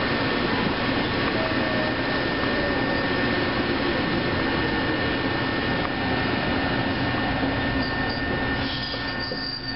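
Electric commuter train running on the Eizan Electric Railway, heard from inside the cab: a steady rumble of wheels on rail with a motor hum, and a high wheel squeal near the end.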